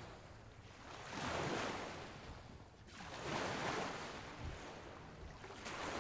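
Soft rushing noise that swells and fades about every two seconds, three swells in all, like waves breaking on a shore.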